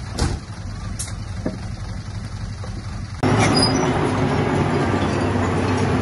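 Heavy diesel engine of earthmoving machinery running steadily, with a couple of sharp metallic knocks in the first second; about three seconds in it suddenly becomes much louder and fuller.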